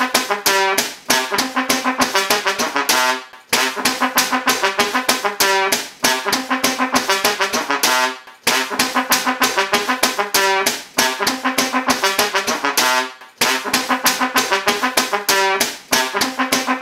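Trombone playing a fast run of short notes with sweeping slide glides up and down in pitch. The same short phrase repeats about every five seconds, each pass broken by a brief gap.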